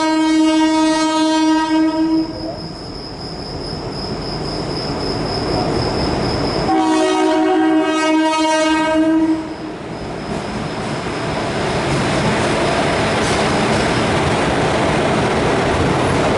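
Horn of a WAP4 electric locomotive, two long blasts: one ends about two seconds in and a second comes about seven seconds in. Between and after the blasts, the rising rumble and clatter of the express train's wheels on the track as it runs through the station without stopping.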